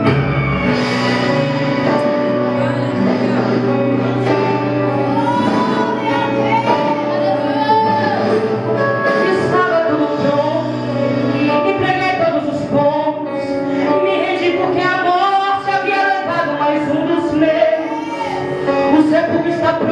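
A young woman singing a Portuguese gospel song live into a microphone, backed by a band with electric guitar and sustained keyboard chords; her voice comes in about half a second in, over the chords.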